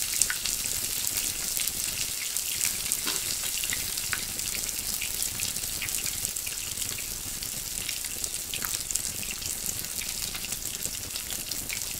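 Pork belly sizzling in its own fat on an electric grill pan: a steady hiss with scattered pops and crackles.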